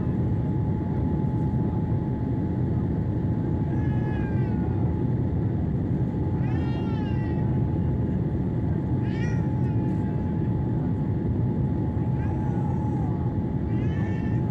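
Boeing 787 cabin noise on approach: a steady low rush of airflow and engines with a thin steady hum. Five short, high-pitched cries that rise and fall, each under a second, come at uneven intervals of one and a half to three seconds.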